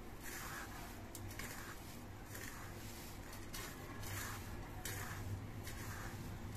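Hands scooping and rubbing dry breadcrumbs in a steel plate, a soft rustling that comes in short repeated swells. A faint steady low hum sits underneath.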